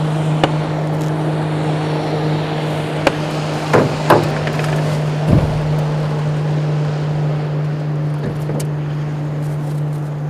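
Small boat's motor running with a steady low hum, with a few knocks and thumps from handling in the boat: two close together about four seconds in and a heavier thump just after five seconds.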